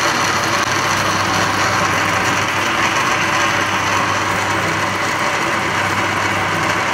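Electric blender running steadily at full speed, grinding raw onions and yogurt into a smooth paste. It makes a continuous whirring motor hum with no change in pitch.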